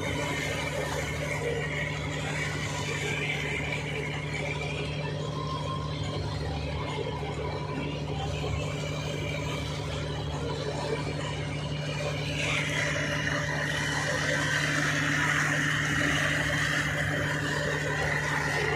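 Fishing boat's engine running steadily under the load of towing a disabled boat, with wake water rushing. A high wavering squeal joins it about two-thirds of the way through and keeps going.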